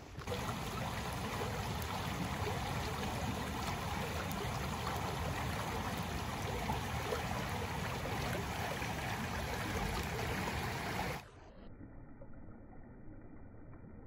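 Shallow, fast stream rushing over stones as a steady, even rush. About eleven seconds in it drops sharply to a quieter, muffled rush.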